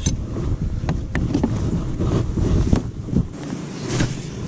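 Wind buffeting the microphone, with a handful of short sharp knocks and clicks from handling gear on a fishing boat's deck.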